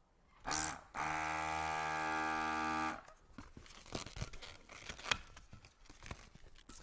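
Electric balloon inflator running: a short burst, then a steady motor hum for about two seconds as it inflates a 260 twisting balloon. After it stops, the latex balloon is handled, with small rubbing and clicking sounds.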